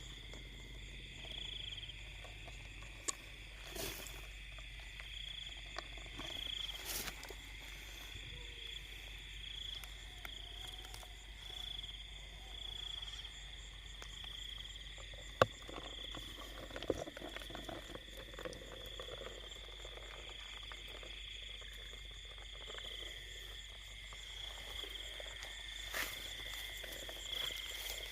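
Chorus of crickets and frogs calling in rice fields: a steady high trill that swells in regular pulses, over a lower steady call. A few sharp clicks stand out against it.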